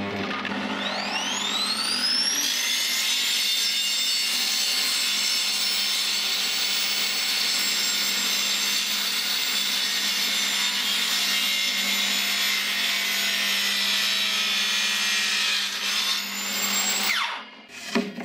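Parkside bench table saw switched on, its blade spinning up with a rising whine, then running steadily while a laminated board is fed through to cut a cupboard door. Near the end it is switched off and winds down with a falling whine.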